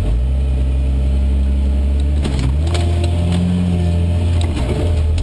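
Steyr-Puch Pinzgauer's engine and drivetrain under load, heard loud from inside the cab, its pitch dipping and climbing again as the revs change. A few short knocks and rattles from the cab.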